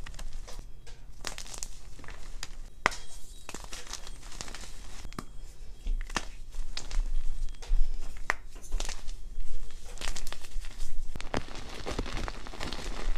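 Hands crushing and crumbling chunks of powder-coated chalk: dense crunching and crackling with scattered sharp snaps, getting louder about halfway through.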